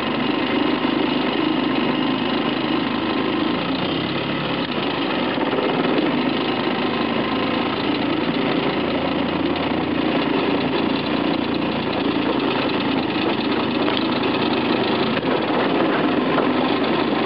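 1939 South Bend Bendix air-cooled two-stroke outboard motor running steadily at an even speed.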